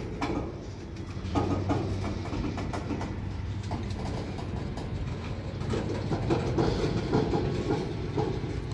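Slow-moving freight train rolling past, its wheels clicking and knocking irregularly over the rails. Under this is the steady drone of its diesel locomotives working hard under heavy load, a train struggling to keep moving up the line.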